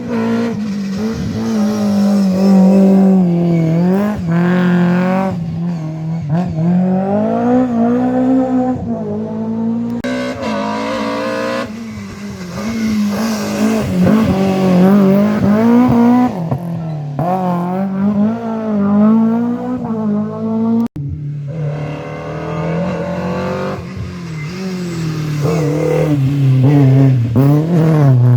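Rally cars at full effort on a special stage, engines revving up and dropping back through gear changes as they pass. Three separate passes follow one another, cut together abruptly about 10 seconds and 21 seconds in.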